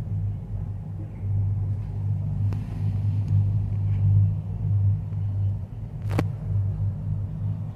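Steady low rumble of a Maokong Gondola cabin travelling along its cable, heard from inside the cabin, with one sharp click about six seconds in.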